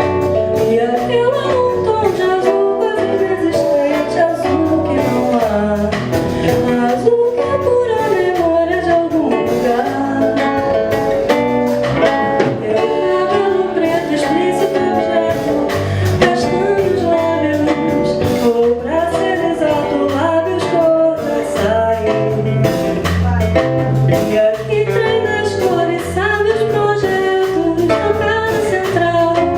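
Female singer performing MPB with a small band: a sung melody over acoustic guitar, bass and drums.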